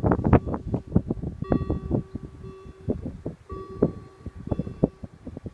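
Level-crossing warning bell ringing in stretches of about a second with the red lights flashing, warning of an approaching train before the barriers come down. Gusts of wind buffet the microphone throughout and are the loudest sound.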